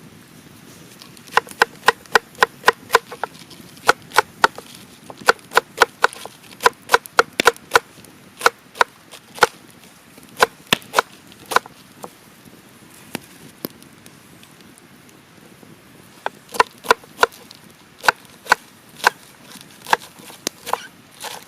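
Blade chopping on wood: quick runs of sharp strikes, about three or four a second, with a pause of a few seconds in the middle.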